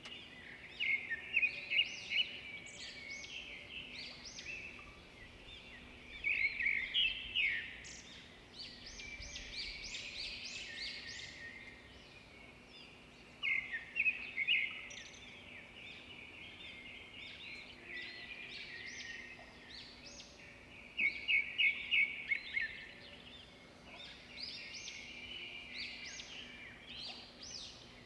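Many small birds chirping and singing at once, overlapping high calls and trills, with a louder burst of rapid chirps every several seconds. A faint steady low hum runs underneath.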